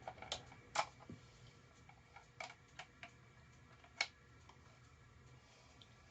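Sharp plastic clicks and taps from an old Roomba robot vacuum's parts being handled, about half a dozen at irregular intervals. The loudest come about a second in and about four seconds in.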